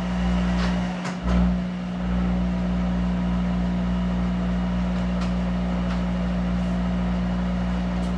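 Monarch 10EE lathe running with its chuck spinning and a steady electrical hum from its drive. A few brief clicks and swells come in the first two seconds as the spindle comes up to speed, then it runs steadily.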